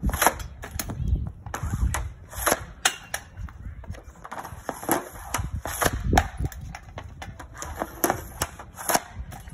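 Hockey stick blade slapping rubber pucks off a plastic shooting pad: a quick, uneven run of sharp clacks, about two a second, as pucks are pulled from a pile and fired one after another.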